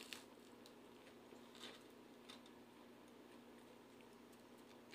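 Near silence: faint sounds of pizza being bitten into and chewed, with a few soft clicks over a steady low hum.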